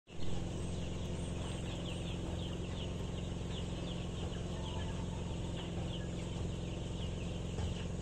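Chickens clucking and calling over a steady low hum, many short falling calls running on without a break.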